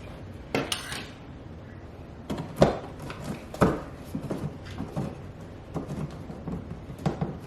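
Scattered knocks and clicks of handling, with a few sharper ones about half a second, two and a half and three and a half seconds in.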